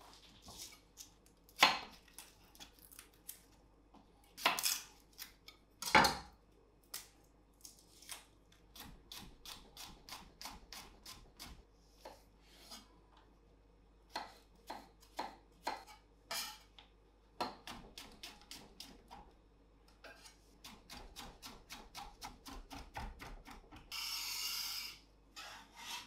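Chef's knife chopping onion on an end-grain wooden cutting board: runs of quick, even taps at about five a second, with a few heavier knocks. Near the end comes about a second of scraping as a metal bench scraper slides across the board.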